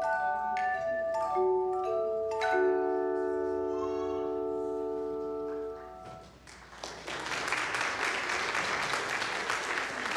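Handbell choir ringing a tune in sustained chords; the last chord is held and then damped about six seconds in. The congregation then applauds.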